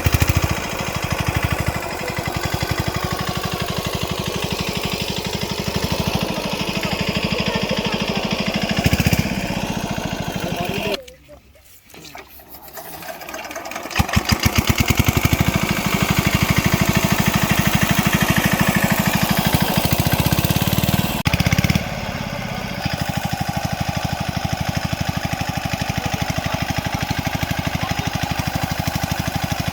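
Small engine running steadily with a fast, even beat. It cuts out about eleven seconds in and comes back a few seconds later.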